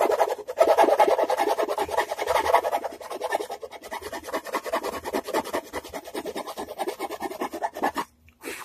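Rapid back-and-forth abrasive strokes of a hand tool on the edge of a wooden guitar body, rounding it off and cutting it at an angle. The strokes stop abruptly about eight seconds in, with one short scrape just after.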